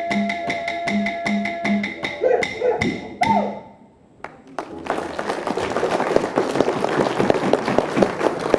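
Clapsticks beating a fast, even rhythm over a steady didgeridoo drone, ending about three and a half seconds in with a short rising shout. After a moment's hush, an audience claps and cheers from about five seconds in.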